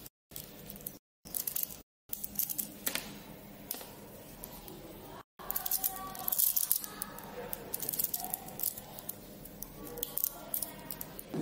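Small magnet balls clicking and ticking as they snap together and roll against each other under the fingers, in quick irregular clusters of sharp clicks.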